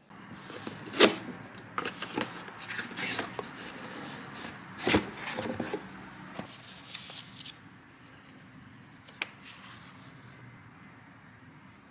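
Cardboard cake box being handled and the cake on its board slid out, with sharp knocks and scrapes, the loudest about one and five seconds in. This is followed by quieter crinkling as the ribbon and the clear plastic cake wrap come off.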